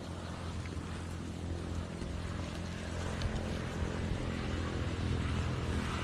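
Buzzing hum of a wild giant honeybee colony around its open comb: a steady low drone that slowly grows louder.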